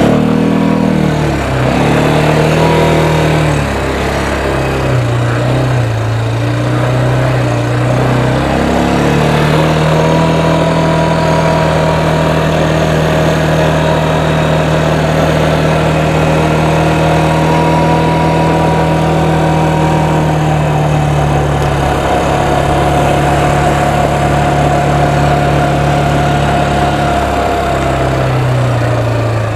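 Small motorbike engine running while being ridden, its speed rising and falling with the throttle: it holds a steady higher pitch for about ten seconds in the middle, then eases off.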